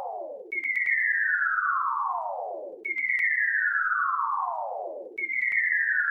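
Firework whistle sound effect repeated three times, each a clean, slightly doubled tone sliding down from high to low over about two seconds, with faint clicks between.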